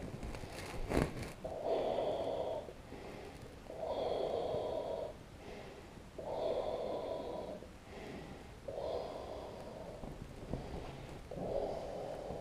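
A person breathing heavily and rhythmically close to the microphone: five strong breaths about two and a half seconds apart, with softer breaths between them.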